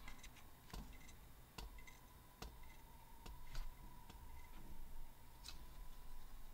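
Faint handling noise: a few scattered light clicks and taps as a trading card is held and shifted close to the camera, over a faint steady hum.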